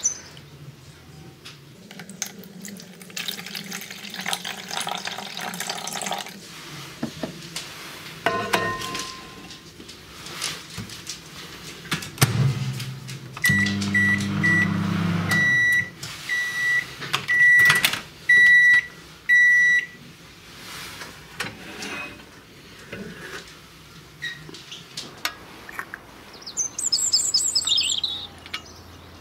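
DeLonghi microwave oven being set and started: its keypad gives a series of short, same-pitched beeps over the low hum of the oven running. Birds chirp near the end.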